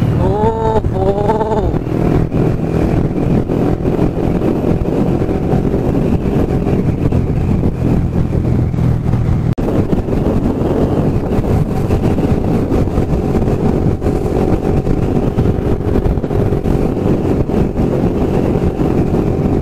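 Yamaha R15 V3 motorcycle's single-cylinder engine running steadily at riding speed, with road and wind rush on an onboard microphone. Two short pitched sounds that rise and fall come about half a second and a second and a half in.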